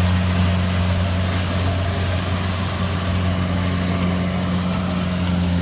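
Kubota 7000 rice combine harvester's diesel engine running steadily, a constant low hum.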